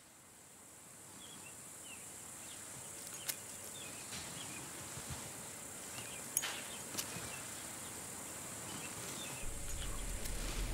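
Woodland ambience fading in: scattered short bird chirps over a steady high insect hum, with a few sharp clicks.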